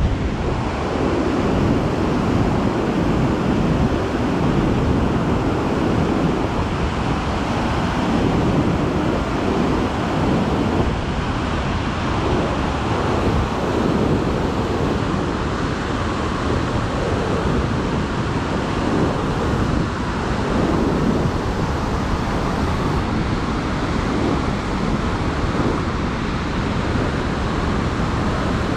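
Merced River whitewater rushing down a granite cascade above Vernal Fall, swollen with snowmelt: a loud, steady rush of water.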